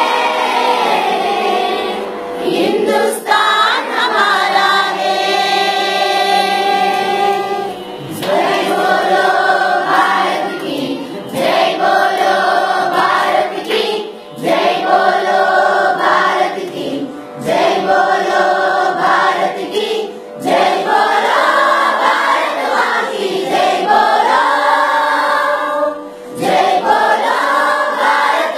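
A large chorus of schoolchildren singing a patriotic song together, in phrases of a few seconds with brief breaths between them.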